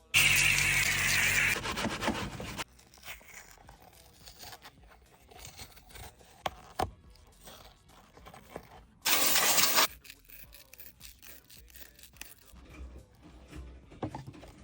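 Two loud bursts of rough scraping, the first about two seconds long from the start and the second about a second long near the middle, with quieter scratching and handling noises between, from shoe-repair work.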